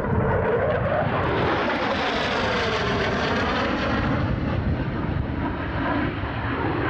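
F-35 fighter jet's engine running loud and steady as the aircraft passes, the sound sweeping down and back up in pitch over a few seconds.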